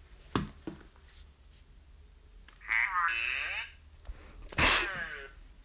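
A person's voice making wordless sounds: a pitched cry that slides down in pitch about halfway through, then a louder, harsher cry near the end, after a sharp click at the start.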